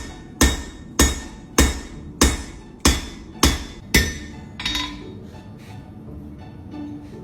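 Blacksmith's hammer striking a punch to drive a slot through the steel guard blank: eight hard, ringing blows about every 0.6 s, then two lighter strikes around five seconds in before the hammering stops.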